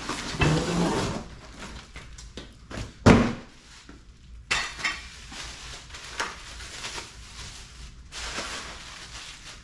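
Cardboard box rustling and scraping as a long steel pallet buster pry bar is pulled out of it, with metal clanks and knocks and one loud thump about three seconds in.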